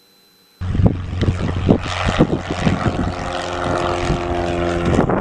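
Piper Warrior II's four-cylinder Lycoming engine and propeller droning at full takeoff power as the plane lifts off, heard from the ground with wind buffeting the microphone. The sound cuts in suddenly about half a second in, after near silence.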